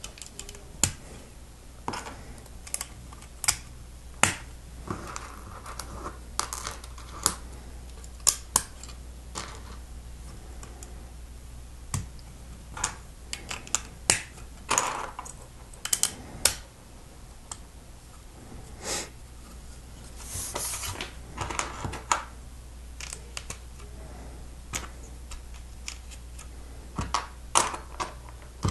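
Plastic Lego bricks being handled and pressed together: irregular sharp clicks and snaps, a few loud and most soft, with a short rustle about two-thirds of the way through.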